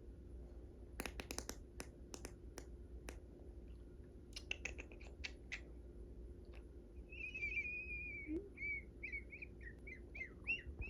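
A dog whining in high, wavering notes that rise and fall, starting after a run of light clicks.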